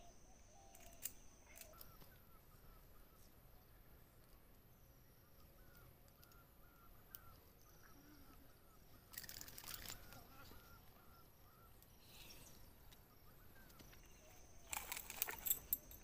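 Quiet riverside ambience with faint, repeated small bird chirps. There is a brief rustle about nine seconds in, then louder rustling and knocks near the end as a freshly landed snakehead is picked up off the grass with a lip grip.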